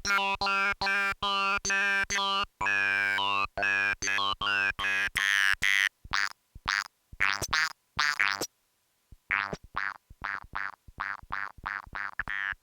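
Arturia MicroFreak synthesizer playing a sequenced pattern of short, sharply cut staccato notes, about three to four a second, over a steady low bass note. The pattern drops out briefly a little past the middle and comes back quieter with shorter notes.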